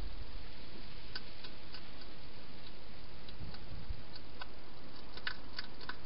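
Wild hedgehog feeding at a bowl inside a plastic feeding box: scattered small clicks and crunches, with a quick run of them near the end, over a steady hiss.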